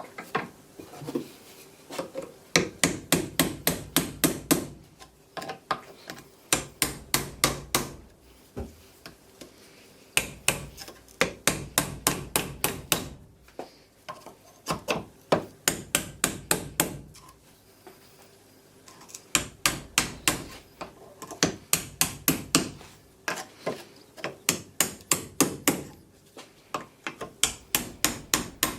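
Hammer tapping in quick runs of about eight to ten sharp blows, roughly five a second, with pauses of a second or two between runs.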